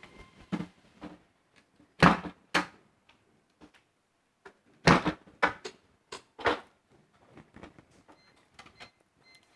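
Locks of a 16-port FTTH fibre distribution box being released and its lid swung open: a run of sharp clicks and knocks, loudest about two seconds in and again around five seconds in.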